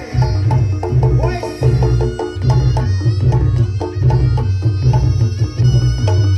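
Reog Ponorogo accompaniment music played loudly: fast, dense pitched percussion strikes with ringing tones over a heavy low pulse about twice a second.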